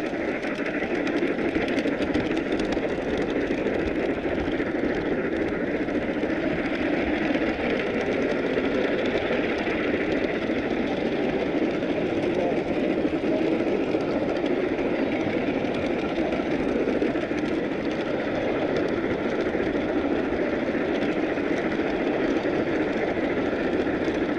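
Model train running along its track, heard from a camera riding on one of its cars: a steady, even rolling noise of wheels on rail and the locomotive's motor.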